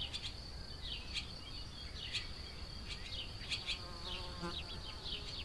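Meadow ambience: a steady high whine runs throughout, with small birds chirping in short falling notes. About four seconds in, an insect buzzes past briefly.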